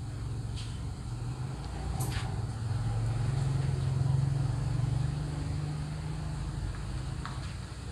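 Low engine hum of a passing motor vehicle, growing louder a couple of seconds in and fading again near the end, with a few faint clicks.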